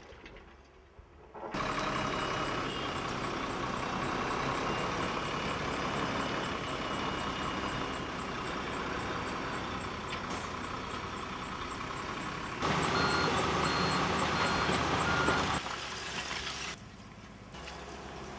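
Heavy diesel demolition machinery, a hydraulic excavator and dump truck, running under load, starting about a second and a half in and changing abruptly several times. Near the middle a reversing alarm beeps a few times.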